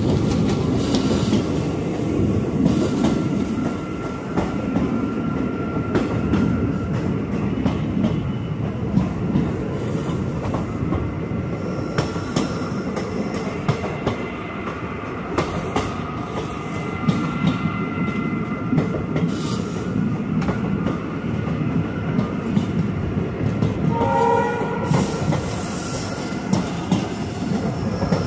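Express passenger train running along the rails, heard from on board: a steady rumble with clicks from the rail joints and a thin wheel squeal at times. Near the end there is a brief pitched tone.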